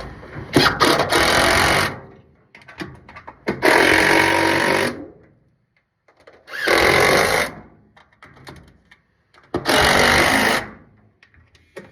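Cordless power driver running screws in, four bursts of about a second each with short pauses between.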